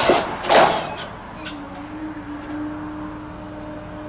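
Excavator-mounted hydraulic scrap shear working a steel guardrail: two loud bursts of metal grinding in the first second, then a steady low hum from the excavator's engine and hydraulics as the jaws hold.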